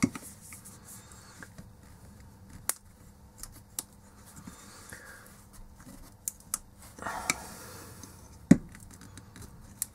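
Thin screwdriver scraping and prying at the glued plastic diffuser rim of an LED bulb: scattered small clicks and scratches, a longer scrape about seven seconds in and a sharp snap near the end.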